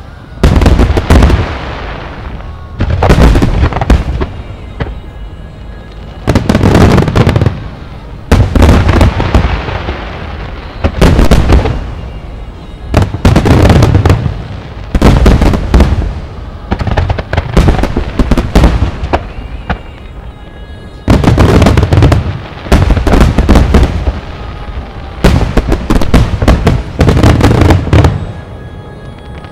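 Aerial firework shells bursting in rapid volleys during a fireworks display's grand finale. There are about a dozen loud clusters of booms and crackle, each lasting around a second, with short lulls between them.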